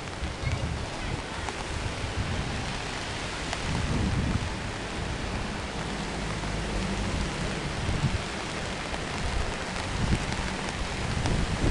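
Steady rain hiss, with an uneven low rumble underneath.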